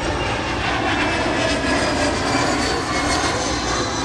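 Twin rear-mounted turbofan engines of a Canadair Challenger jet on a low pass: a steady jet roar with a high whine that slowly falls in pitch as the jet passes and banks away.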